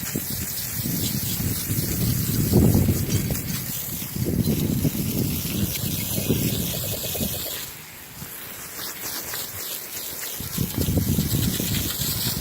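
Garden hose spray nozzle jetting water onto metal ceiling fan parts to rinse off bleach and rust, the spray surging unevenly, easing off about eight seconds in and picking up again near the end.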